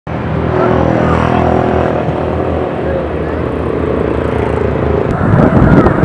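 A steady motor-engine hum with a low, even pitch, then gusts of wind buffeting the microphone from about five seconds in.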